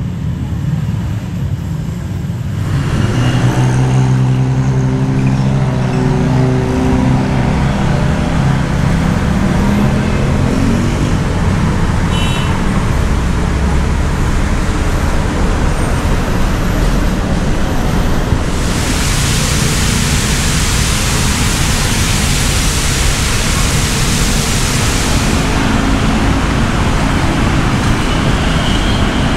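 Street traffic on a busy city road: a steady rumble of passing vehicles. A heavy engine drones low from about three to ten seconds in, and a loud hiss runs from about nineteen to twenty-five seconds.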